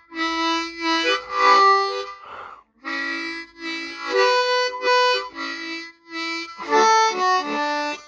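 Diatonic harmonica played tongue-blocked: a tune of held notes in three phrases, broken by short gaps. In the first gap, about two seconds in, there is a brief breathy exhale, the player venting surplus air between phrases.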